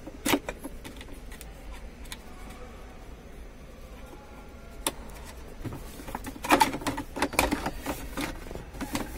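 A metal dashboard bracket and its plastic clip being worked loose by hand: a sharp click just after the start, another about five seconds in, then a run of knocks and rattles in the last few seconds as the bracket comes free.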